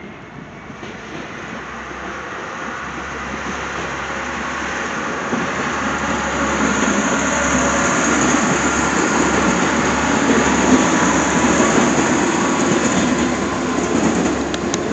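Regional passenger train running past on the rails, a steady rumble of wheels on track that grows louder as it comes closer, loudest about ten seconds in.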